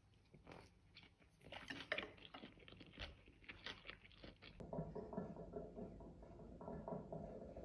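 Close-up chewing of a mouthful of kimbap, with irregular crisp crunches from the seaweed and pickled cabbage, starting about half a second in and stopping abruptly about four and a half seconds in. After that a softer, steady sound with a low hum.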